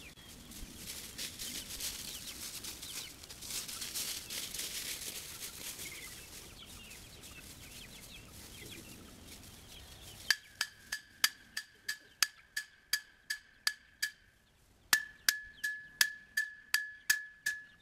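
Chickens clucking faintly over outdoor background noise. About ten seconds in, a louder regular series of sharp ticks begins, each on the same high note, about three a second, with one short pause.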